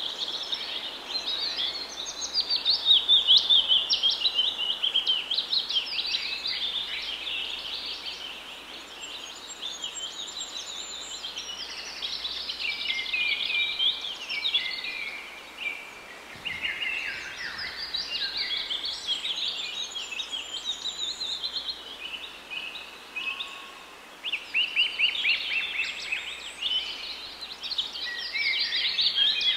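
Many small birds chirping and chattering at once: a dense, continuous chorus of quick, high chirps that swells and fades, loudest a few seconds in and again near the end.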